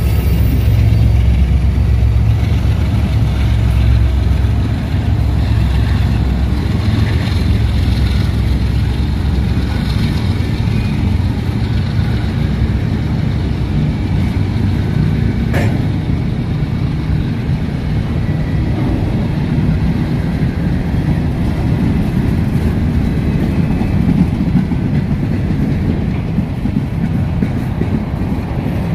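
Covered hopper cars of a CSX freight train rolling past at close range: a steady, loud rumble of steel wheels on rail. A deeper drone is strong for the first ten seconds or so and then falls away, and there is one sharp click about fifteen seconds in.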